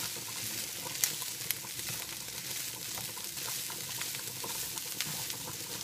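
Ground beef, onions and peppers sizzling in a frying pan as they are stirred with a slotted utensil, a steady hiss with a few sharp clicks of the utensil against the pan.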